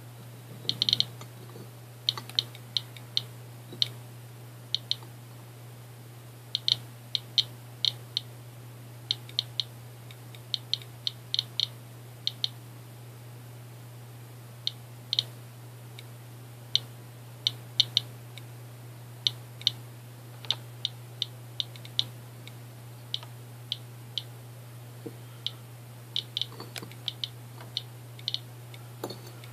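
Eberline Geiger counter survey meter clicking irregularly, a few sharp clicks a second, sometimes in quick runs, as it counts radiation from uranium-doped Vaseline glass.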